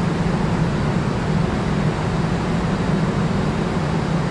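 Steady city background noise around an elevated subway station: an even rush with a constant low hum, and no single event standing out.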